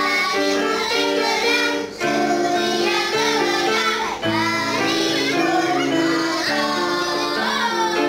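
A group of young girls singing a song together, accompanied by an electronic keyboard.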